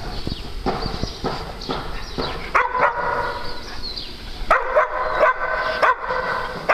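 Small dogs barking: a few barks about two and a half seconds in, then a longer run of quick barks from about four and a half to six seconds in.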